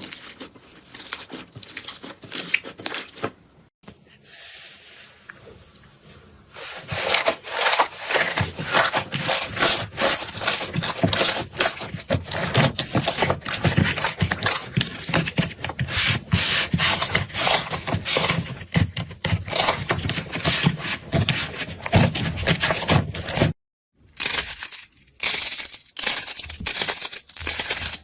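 Slime being squeezed and worked by hand, a dense run of sticky crackles and pops, in several short clips with abrupt cuts between them.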